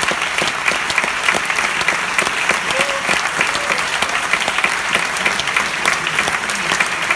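Theatre audience applauding the cast at a curtain call: dense, steady clapping from many hands.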